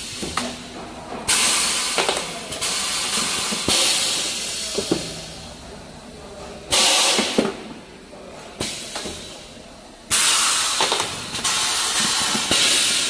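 Automatic cup face mask forming machine cycling: its pneumatic cylinders vent compressed air in sudden hissing bursts about every three seconds, five in all, each fading over a second or so. Sharp metallic clicks and clunks of the press tooling and grippers sound between the bursts.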